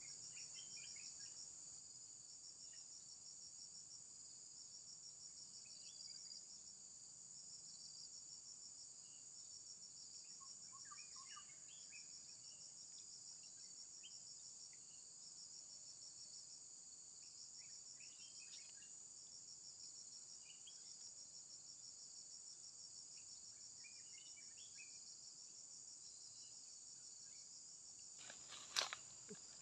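Faint insect chorus: a steady high hiss with one insect trilling in short repeated bursts of about a second each. A few faint scattered chirps sound through it, and there is one sharp knock near the end.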